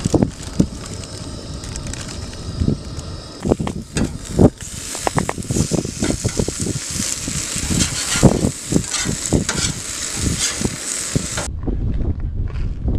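Eggs and ham sizzling on the griddle of a propane camp stove, with a metal spatula scraping and tapping on the griddle as the food is turned. About a second before the end the sizzling cuts off and only low wind rumble on the microphone remains.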